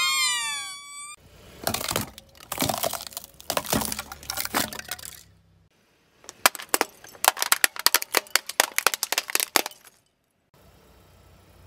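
Rubber squeaky toys squeal with falling squeaks as a car tyre squashes them, followed by crackling and crunching. Then the tyre rolls over thin plastic boxes of water beads: a quick run of sharp plastic cracks and breaking.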